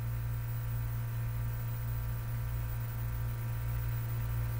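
Steady low electrical hum with a ladder of fainter overtones above it, unchanging throughout.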